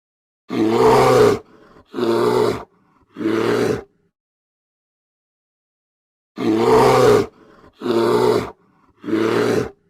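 Grizzly bear roaring: two runs of three deep roars a few seconds apart, each run opening with its longest, loudest roar, with faint breaths between roars.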